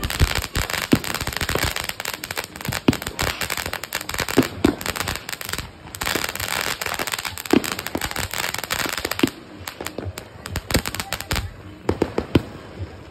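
Ground fountain firework spraying sparks with dense, rapid crackling pops. A short break comes near the middle, and the pops thin out to scattered cracks in the last few seconds.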